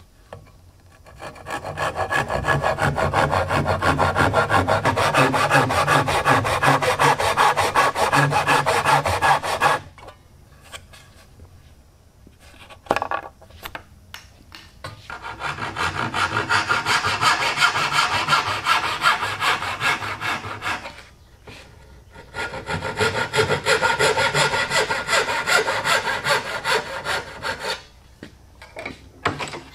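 Handsaw cutting across a wooden board in fast back-and-forth strokes. It comes in three long bouts with short pauses between them.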